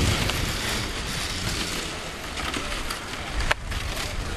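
Snowmobile running through a tight handling course: a steady mix of engine and track noise, with a sharp click about three and a half seconds in.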